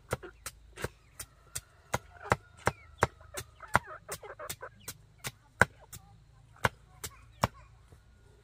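Large chopping knife striking through food on a wooden stump block, sharp even chops about three a second, with a couple of short gaps in the last few seconds.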